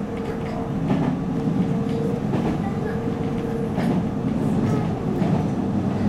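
313 series electric train running along the track, heard from the cab: a steady rumble of wheels on rail, with a light click about every second and a half and a steady tone that drops out and returns.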